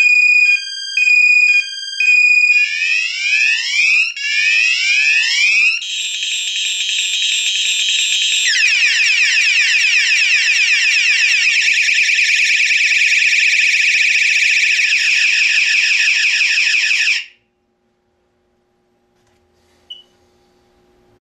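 Wireless indoor alarm siren sounding through several tone patterns: an alternating two-tone hi-lo, then a few rising whoops, a steady tone, and a fast warbling yelp. It cuts off suddenly about four seconds before the end, leaving near silence broken by one faint click.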